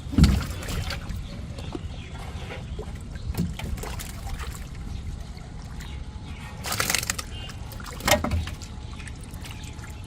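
Water sloshing and splashing, with a few separate splashes: the loudest just after the start, others about halfway and near the end.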